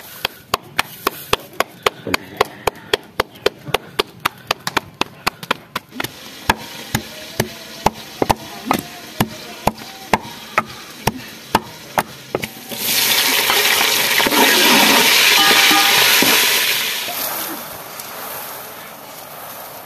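Knife chopping on a cutting board, a steady run of about two to three sharp strokes a second, then a louder steady hiss for about four seconds that fades out.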